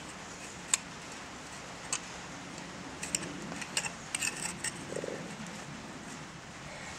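Hoof pick scraping and clicking against a horse's hoof as it is cleaned out: a few short, sharp scratches, then a quick cluster of them about three to five seconds in, over a steady background hiss.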